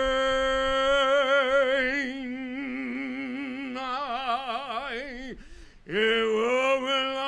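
A man's voice singing long, wordless held notes with a wavering vibrato. The first note slides down and breaks off about five seconds in, and after a short breath a second note comes in at about the same pitch.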